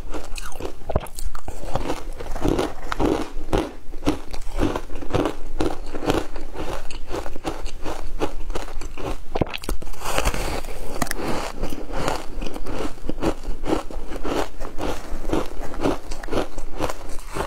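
Frozen fruit shaved ice being bitten and chewed: a steady run of crisp, icy crunches, several a second, with a louder, harsher crunch about ten seconds in.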